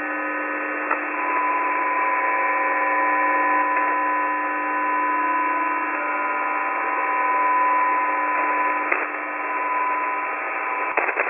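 Shortwave receiver audio on the G06 numbers-station frequency: steady hiss with several steady whistling tones, broken by a few sharp clicks about a second in, about nine seconds in and in a quick cluster near the end. The clicks are taken for Windows XP click sounds leaking onto the transmitter while its operator types the message before the transmission.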